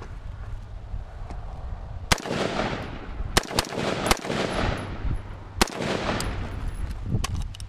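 AR-15 rifle firing about five shots at an uneven pace, the first about two seconds in and the last a little after five and a half seconds, each followed by a brief echo.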